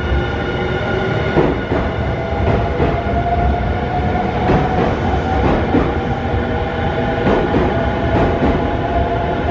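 Nankai 50000-series "Rapi:t" electric train moving slowly along the platform track, with wheels clacking over rail joints every half second to a second over a steady rumble. A steady whine climbs slightly in pitch over the first few seconds.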